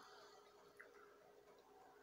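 Near silence: room tone with a faint steady hum and one faint click a little under a second in.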